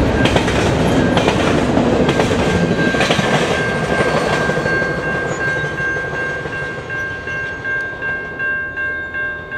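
Passing tail end of a double-stack container freight train, wheels clicking over rail joints and the rumble fading as the last cars move away. A level-crossing bell rings on in a steady pulse, coming through more clearly as the train noise falls, and stops right at the end.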